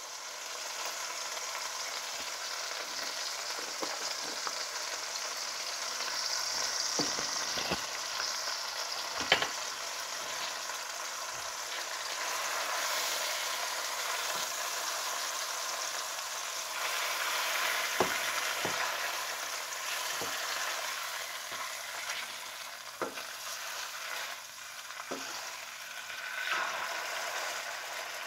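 Mahi-mahi fillet sizzling steadily in oil in a nonstick frying pan, with a few short sharp clicks and scrapes of a spatula against the pan.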